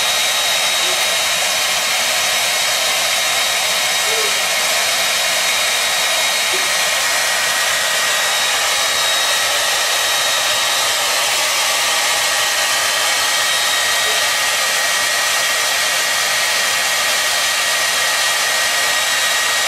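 Handheld hair dryer running steadily: an even rush of blown air with a thin, steady high whine from its motor and fan.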